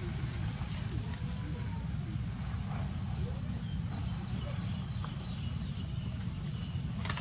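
Steady, high-pitched drone of a chorus of insects, over a low steady rumble, with a few faint short calls in the background.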